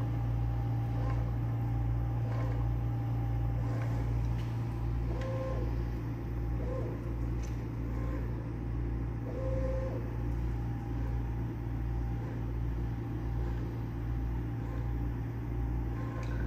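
CNC machine's stepper motors driving the axes through a G-code dry run with the router spindle off: a steady hum with short whining tones that come and go as each move runs.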